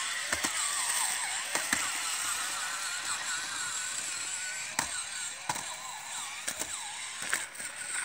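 Terra Climber remote-control toy's small electric motors whining as it drives over rocks and dry leaves, with scattered clicks and knocks from its spiked wheels.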